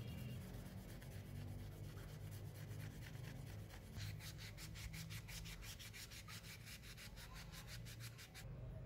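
Scouring pad scrubbing the metal of needle-nose pliers in soapy water: a fast, even run of short rubbing strokes, about five a second, growing stronger about halfway through.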